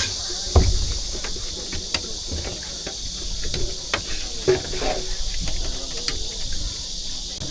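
Scattered knocks and clicks of a roujiamo being made, over a steady high hiss, with a heavier thump about half a second in.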